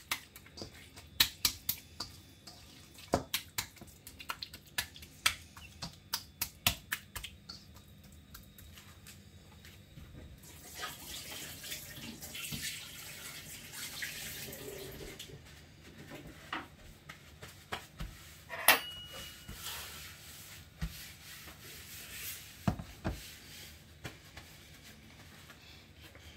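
Wet squelching and slapping of hands rubbing jerk seasoning into raw pork in a stainless steel bowl, about two or three a second for the first several seconds. Midway, about five seconds of a steady hiss like water running from a tap, and a few scattered clicks and knocks near the end.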